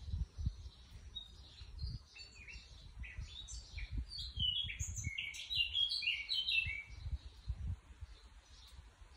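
A songbird singing a run of short, high chirping notes, busiest and loudest in the middle, some of them falling in pitch. Low irregular thumps on the microphone run underneath.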